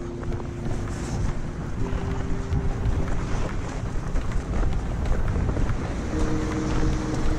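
Wind buffeting the microphone, with waves breaking on a rocky shore, and faint steady held tones underneath that come and go.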